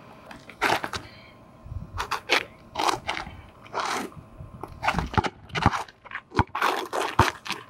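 Sneakers scuffing and scraping on an asphalt basketball court in a run of short, irregular bursts, with a basketball bouncing sharply on the asphalt a couple of times near the end as dribbling starts.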